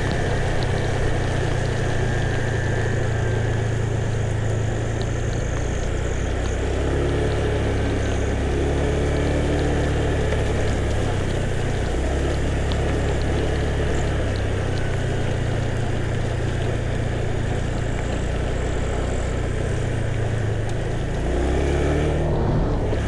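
A vehicle's engine running steadily on the move, its low hum shifting up and down in pitch every few seconds, over a steady hiss of road noise.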